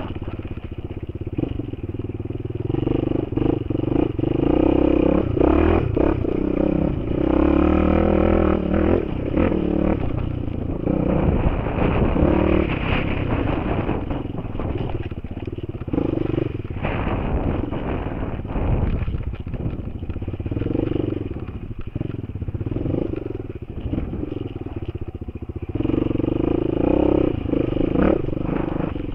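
Single-cylinder enduro motorcycle engine heard from the rider's helmet, revving up and dropping back again and again as the throttle opens and closes, with knocks and rattles from riding over rough, stony ground.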